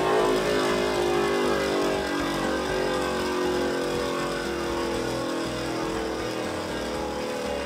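A Beyblade Burst top on the jagged Ds (Destroy) attack driver spinning and travelling around the stadium floor, giving a steady whirring hum that slowly falls in pitch as the top loses spin.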